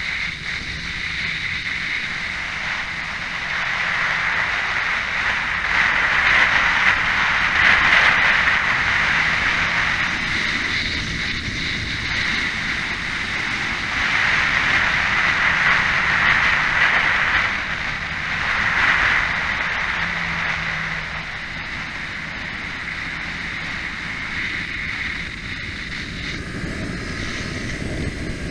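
Kawasaki Ninja parallel-twin sport bike running at speed on a race track, its engine buried under heavy wind rushing over the onboard microphone. The noise rises and falls several times.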